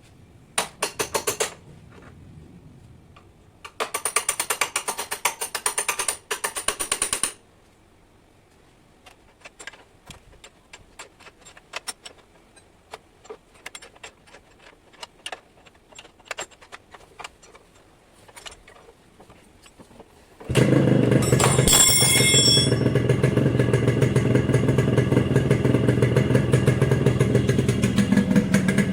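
Two runs of fast ratcheting clicks as the silencer bolt is tightened, then scattered light clicks and taps. About twenty seconds in, the Yamaha RX100's two-stroke single-cylinder engine starts abruptly and runs at idle through its original six-hole silencer.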